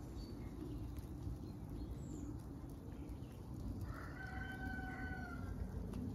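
A rooster crowing once, about four seconds in: a single call lasting just over a second, over a steady low background rumble.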